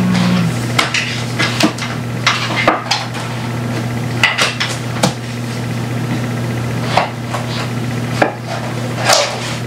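Irregular clicks and knocks of a black picture frame being handled and its backing and padding worked loose, over a steady low hum.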